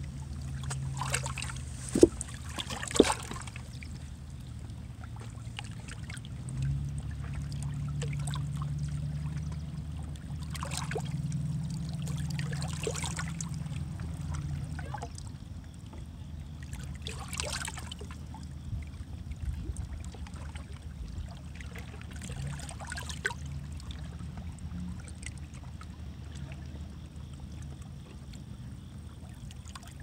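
River water lapping and splashing against shoreline rocks in small, irregular slaps, with two sharp knocks about two and three seconds in. A low steady drone runs underneath, swelling for several seconds before easing off.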